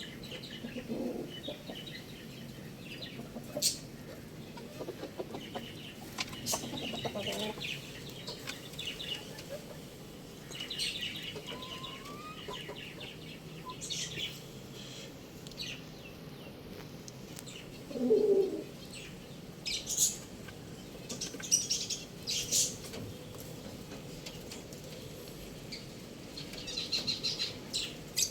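Chickens clucking now and then over small birds chirping, with brief wing flaps; the loudest moment is a short squawk a little past halfway, and no long crow is heard.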